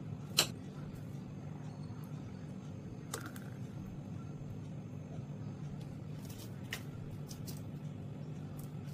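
Steady low hum with a few light, sharp clicks and taps as a glass and blender jar are handled; the loudest click comes about half a second in.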